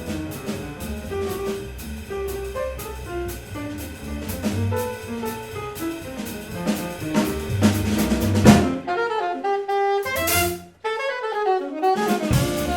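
Jazz quartet of saxophone, piano, double bass and drums playing an up-tempo tune; about two-thirds through, the rhythm section stops and the saxophone plays an unaccompanied break into its solo, and the band comes back in near the end.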